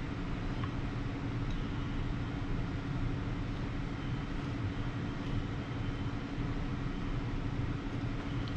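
Steady low mechanical hum with a constant droning tone, unchanging throughout; the quiet hand work on the engine does not stand out above it.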